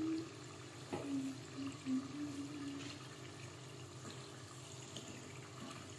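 Spring-roll-wrapped rice turon deep-frying in hot oil with sugar melting on them: a steady sizzling and bubbling. There are a few light knocks in the first three seconds.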